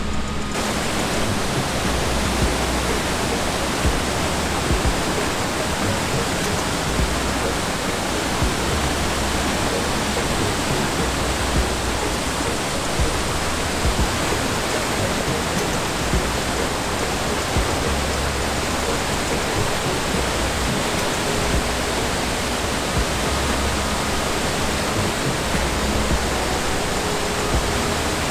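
Water pouring over the stone spillway wall of a dam and splashing onto the rocks and pool below: a steady, loud rush of falling water.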